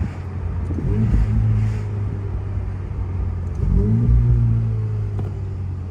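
Ferrari sports car engine accelerating under a steady low rumble, its pitch climbing about a second in and again near four seconds.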